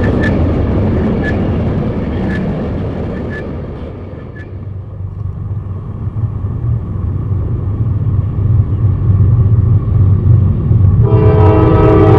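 Freight cars rolling past with regular sharp clicks from the wheels, then approaching diesel freight locomotives whose low rumble builds louder, and the locomotive's air horn sounding about eleven seconds in. The loud sound overloads the camcorder's microphone.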